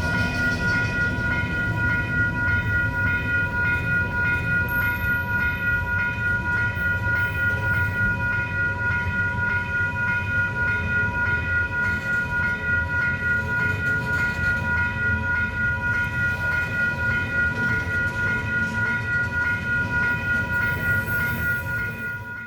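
Railroad crossing signal bell ringing in quick, repeated strikes over the low rumble of a passing train.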